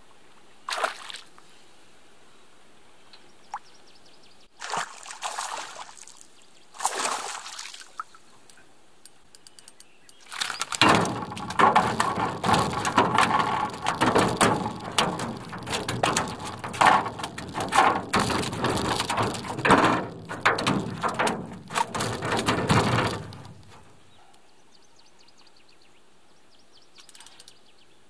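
Water splashing and sloshing: a few short splashes, then a loud, choppy stretch of about thirteen seconds that stops abruptly.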